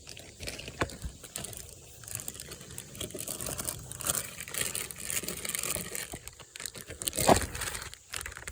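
Handling noise of chainsaw air-filter parts being fitted: scattered clicks, rustling and crinkling, with one louder knock about seven seconds in.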